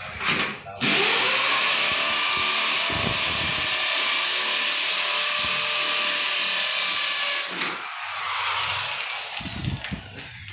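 Corded electric drill boring a hole into the wall at the edge of a mirror frame, to mount the mirror. It runs steadily at full speed for about six and a half seconds, then stops and winds down.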